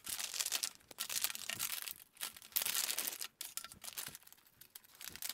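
Shiny anti-static plastic bag crinkling and crackling as it is handled and opened, in irregular bursts with short pauses.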